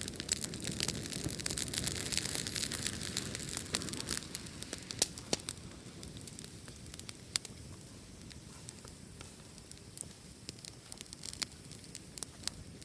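Fireplace fire crackling lightly: a soft hiss of flame with many small, sharp pops of burning wood. The hiss and popping are busiest for the first few seconds, then ease to a quieter burn with scattered cracks.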